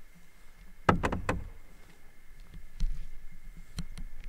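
Sharp hollow knocks: a quick run of four about a second in, then single knocks about a second apart.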